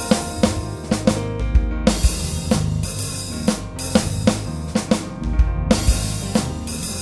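Music with a steady drum-kit beat of bass drum, snare and cymbals, over sustained pitched instruments.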